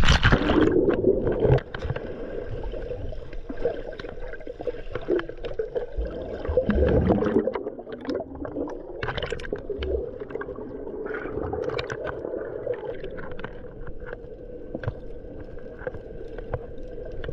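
Underwater sound picked up by a snorkeler's camera below the surface: muffled gurgling and sloshing water with many short scattered clicks.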